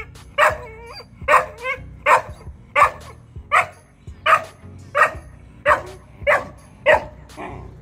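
Puppy barking over and over at another dog by a food bowl: short, yappy barks about one every 0.7 seconds, a few trailing off into a brief whine.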